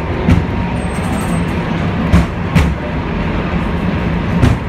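M-24 vintage tram running, heard from inside its wooden passenger saloon: a steady low rumble of the running gear on the rails, broken by four sharp clacks.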